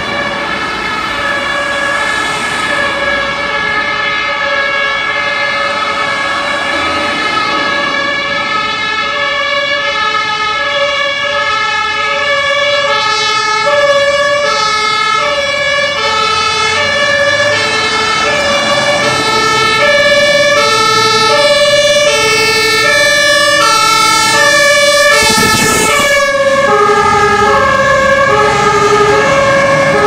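Two fire engines' German two-tone sirens (Martinshorn), sounding together out of step, each alternating between a high and a low note and growing louder as the trucks approach. About 25 seconds in, a rush of truck engine and tyre noise comes as the first truck passes close, and the siren tones drop slightly in pitch.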